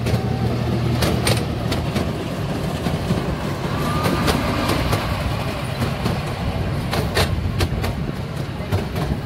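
Wooden roller coaster train rumbling along its track, with irregular sharp clacks over a steady low rumble.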